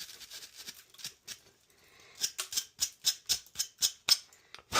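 Bristle brush scrubbing a crumbling, deteriorated furnace burner: faint scratching at first, then quick brushing strokes at about four a second from about two seconds in.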